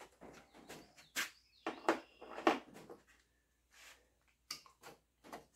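Handling noises of small parts and tools: a string of short, sharp clicks, knocks and rattles, loudest about two to two and a half seconds in. No engine is running.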